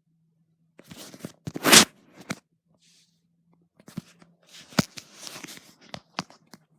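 Irregular rustling and crunching handling noises with several sharp clicks, the loudest about two seconds in, over a faint steady low hum that stops about halfway through.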